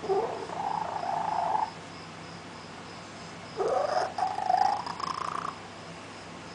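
A cat that can't meow makes two strange calls in place of a meow, each lasting under two seconds and rising in pitch at the start; the uploader wonders whether it has lost its voice.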